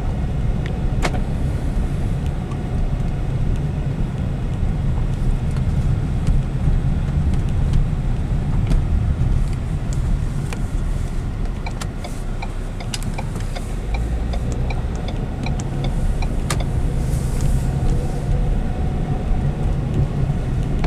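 A 2015 Ford Edge being driven, heard from inside the cabin: a steady low rumble of road and engine noise. Light clicks come and go in the middle stretch.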